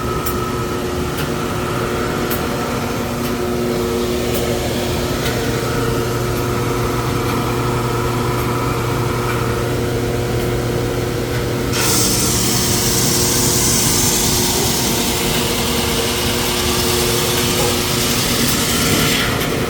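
Drum sander running with a steady motor hum. About twelve seconds in, a loud gritty sanding hiss starts suddenly as the wooden board passes under the sanding drum, lasting about seven seconds before it stops.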